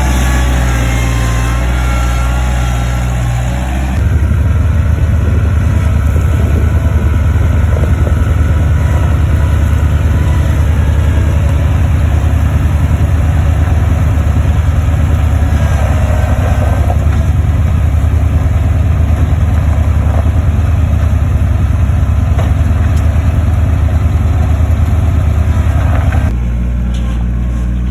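Skid steer engine running. About 4 s in it rises to a louder, fast throbbing note that holds for some twenty seconds before dropping back near the end.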